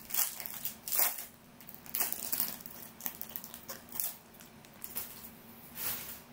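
Foil trading-card pack wrapper crinkling as it is torn open and handled by hand, in a series of short bursts.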